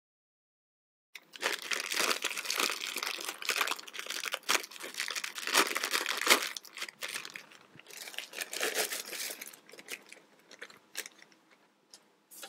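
Plastic crinkling and rustling with many sharp clicks as small plastic building-kit pieces are handled, starting about a second in and thinning out to a few separate clicks near the end.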